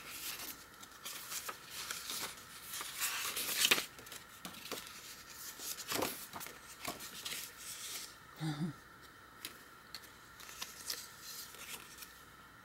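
Pages of a handmade paper journal being turned and handled: irregular paper rustling and flapping, busiest and loudest in the first few seconds, then a few scattered soft taps and rustles.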